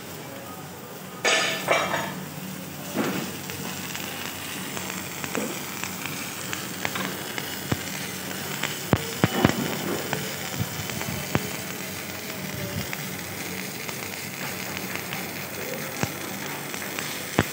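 MIG welding arc crackling and sizzling steadily on a steel kiln shell, with a few louder knocks in the first three seconds.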